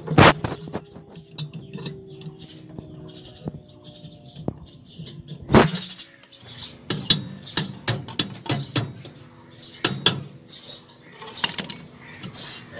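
Sharp metallic clicks and knocks of pliers and copper tubing against a refrigerator compressor's pipe stubs as a copper pipe is worked onto a stub. One loud click comes just after the start, another about five and a half seconds in, then a run of clicks between about seven and ten seconds.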